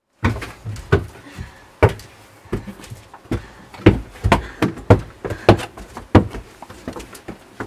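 Several people's footsteps going down steep wooden stairs: a string of irregular knocks, about one every half second to second.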